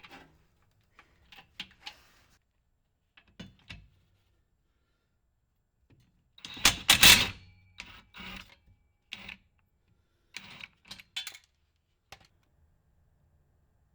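Scattered metallic clicks and clanks of hand tools being handled, in short groups with quiet gaps; the loudest clatter comes about seven seconds in with a brief metallic ring.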